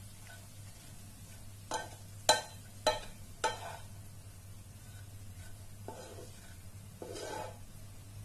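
Wooden spatula knocked four times on the rim of a nonstick frying pan, about half a second apart, the second knock the loudest, over a faint sizzle from the pan on the burner. A brief softer rustle comes near the end.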